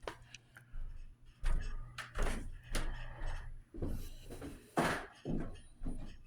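A string of dull knocks and thumps, roughly one every half second to second, over the faint hum of ceiling fans running on low.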